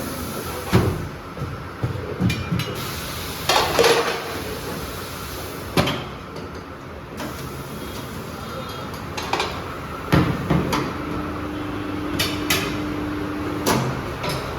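Scattered metal knocks and clanks from tyre-fitting work on a car wheel. Near the end a steady hum runs for a few seconds, then stops.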